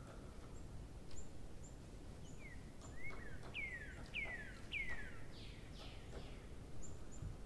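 A bird singing: a run of clear whistled notes, each falling in pitch, about two a second through the middle, with short high chirps in between, over a steady low background noise.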